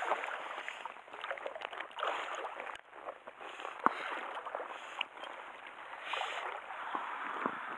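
Water sloshing and splashing against the side of a small fishing boat, with small clicks and knocks of handling gear.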